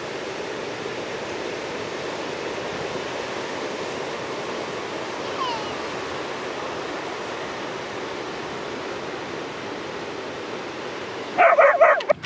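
Steady wash of ocean surf breaking on the beach. A short, faint falling call sounds about five and a half seconds in, and a loud voice cuts in near the end.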